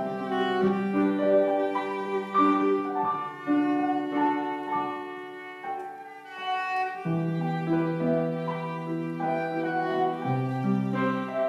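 Violin and piano duet: a bowed violin melody of held notes over sustained low piano notes, with a short lull about six seconds in before the next phrase begins.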